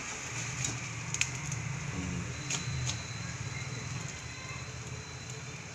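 Deep-frying oil sizzling faintly under a low steady hum, with a few light metallic clicks as a wire strainer full of fried ghughra is shaken and tapped against the pan.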